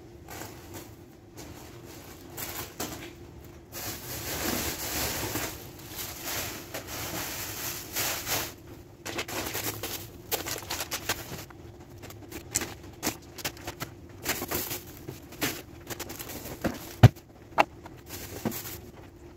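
Plastic bags rustling and packets and objects knocking and clattering as a kitchen drawer is emptied by hand, with the longest stretch of rustling in the first half and a sharp knock about 17 seconds in. A faint steady hum lies underneath.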